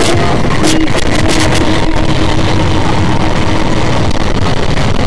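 Tilt-tray tow truck driving with its engine running steadily under road noise, with a few short crackles near the start.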